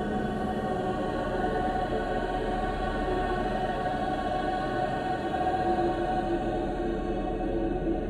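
Haunting choir singing long held notes in a slow chord, with no words; the chord shifts lower near the end.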